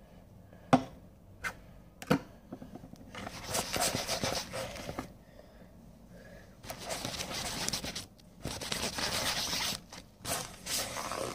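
A wet pencil case being scrubbed by hand to work the soap out. A few short knocks come in the first two seconds, then four stretches of rubbing with short pauses between them.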